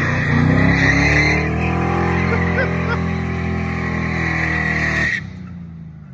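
SN95 Ford Mustang V8 revving hard with its rear tyres squealing through a drift. The engine note climbs, then eases down steadily, and the sound cuts off sharply about five seconds in.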